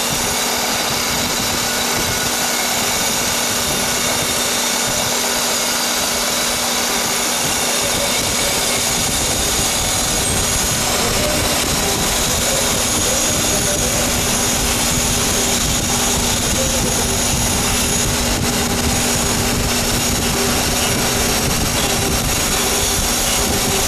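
Laxman CLM-3 cylindrical grinding machine internal-grinding a bore in a ceramic workpiece: a steady hiss and high whine from the internal grinding spindle and wheel, with coolant flowing, over a constant motor hum. The low rumble grows stronger about eight seconds in.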